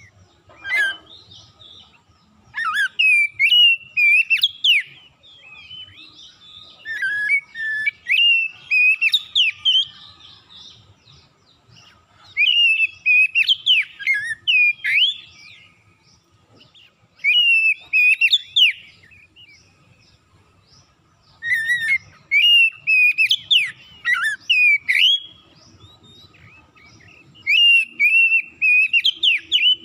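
Oriental magpie-robin singing: about six bouts of loud, rapid, varied whistled phrases, each a few seconds long, with short pauses between them.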